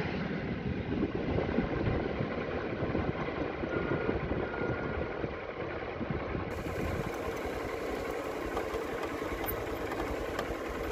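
Motorcycle engine running steadily at low speed, mixed with wind and road noise, heard from on the moving bike.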